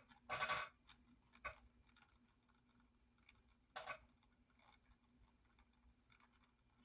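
A few short rustles of handling, as of diecast packaging being moved: the first, right at the start, is the loudest, with smaller ones about a second and a half and four seconds in, over a quiet room.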